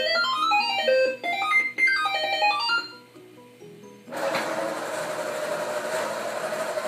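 Radio Shack Robie Sr. toy robot playing a quick run of electronic beeping notes as its eyes light up. From about four seconds in, its drive motor and gears whir steadily as it rolls forward.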